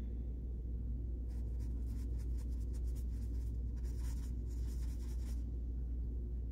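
Paintbrush scrubbing acrylic paint around a paper-plate palette: a run of quick scratchy strokes from about a second in until about a second before the end, over a steady low hum.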